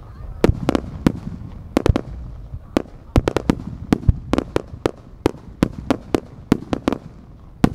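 Aerial firework shells bursting in quick succession: an irregular string of about two dozen sharp cracks, often several a second.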